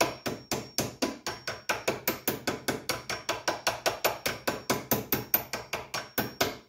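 Hammer tapping rapidly and steadily on a steel socket, about six taps a second, driving a milling machine's quill return clock spring into its slot. The taps stop near the end.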